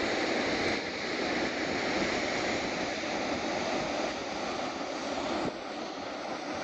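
Rough sea surf breaking and washing up the beach, a steady rushing noise with no separate waves standing out.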